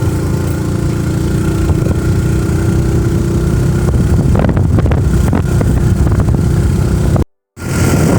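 Steady engine hum and road noise of a moving vehicle, which cuts out completely for an instant near the end.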